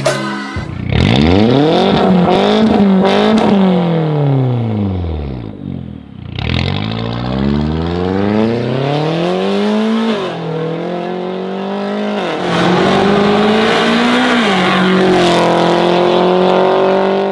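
Mini Cooper S R56's 1.6-litre turbocharged four-cylinder through an Fi valvetronic performance exhaust. It is revved up and held with a few blips, then falls back to idle. It then launches hard and pulls away, rising in pitch through three quick upshifts.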